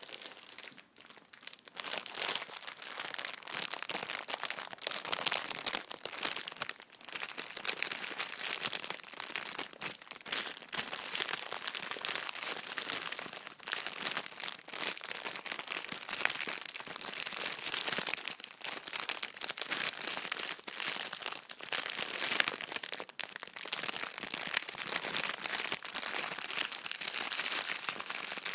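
Plastic packaging crinkled and scrunched by hand: a dense, continuous crackling rustle that starts properly about two seconds in, after a few faint crinkles.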